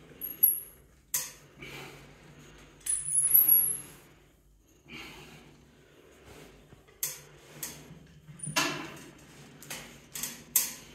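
Intermittent metallic clinks, clicks and knocks from a strap-and-pulley armwrestling training rig as its steel handle is pulled, with a few short high squeaks near the start and about three seconds in, and a cluster of sharp clicks in the last four seconds.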